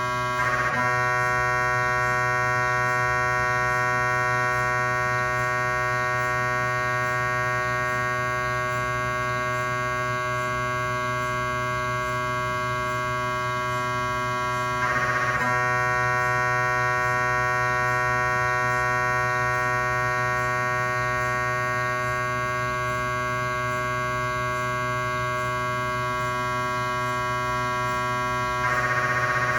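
GE 3T MRI scanner's gradient coils buzzing steadily during a cardiac scan sequence, a dense chord of fixed tones. About every 14 seconds, near the start, halfway and near the end, there is a brief burst and the buzz gets slightly louder.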